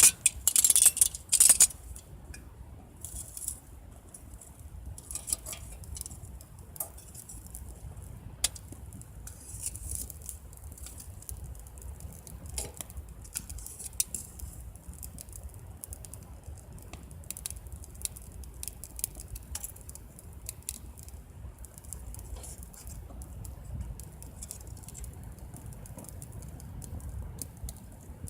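Wood fire crackling in a camp fire pit, with irregular sharp pops and clicks throughout. A louder clatter comes in the first two seconds.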